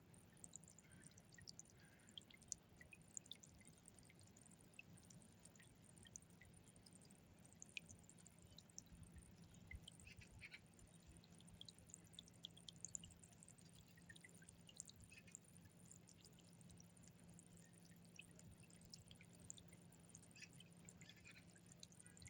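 Faint water from a small garden-pond fountain, dripping and splashing in many small, irregular drops.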